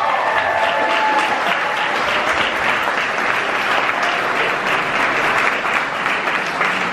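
Crowd of guests applauding, a dense, steady clapping.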